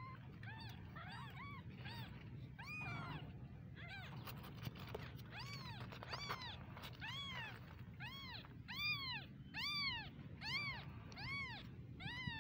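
Newborn kittens mewing: a run of short, high-pitched cries, each rising and falling in pitch, coming irregularly at first and then about once a second and louder in the second half.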